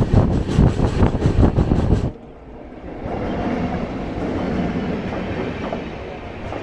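Indian express train running at speed, heard from an open coach doorway: wheels clattering over the rails with rushing wind. About two seconds in, the sound drops abruptly to a quieter rumble as an Indian Railways electric locomotive and its coaches pass on the next track.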